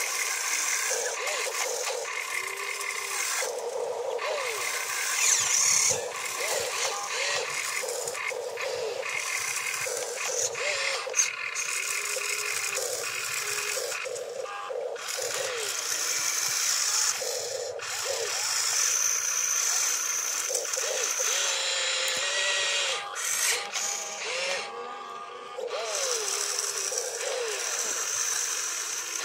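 Radio-controlled excavator working: a steady motor whir and mechanical rattle as it digs and swings its boom. Many short rising-and-falling tones sound over it throughout.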